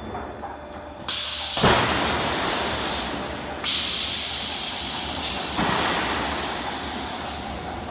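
Factory machinery noise from a sheet-metal roll forming line: a hiss over a low hum, which jumps suddenly louder about a second in and again a little past the middle, with a sharp knock between the two.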